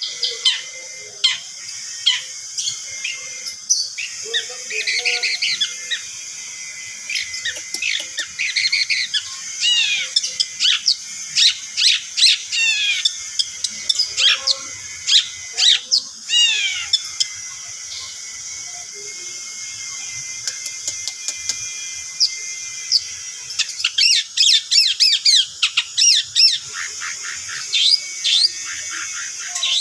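Long-tailed shrike (cendet) singing, a lure song (pancingan) of the kind played to provoke other shrikes into singing. It is a varied, continuous run of quick chirps and falling whistled notes, densest in a fast burst near the end.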